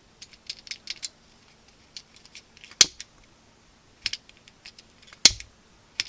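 Handheld lighter being clicked, with two sharp, loud clicks about two and a half seconds apart among lighter ticks and small clicks.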